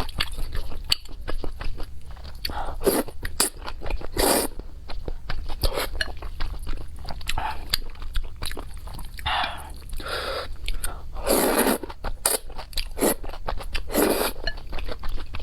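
Close-miked biting and chewing of crisp chili peppers: a steady run of wet crunches and clicks, with several louder crunching bites spread through.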